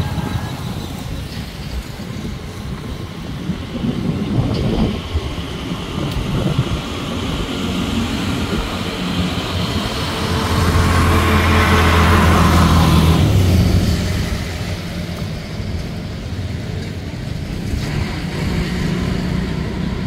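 Road traffic: a motor vehicle passes close by, swelling to its loudest about ten to fourteen seconds in and then fading, over a steady low rumble.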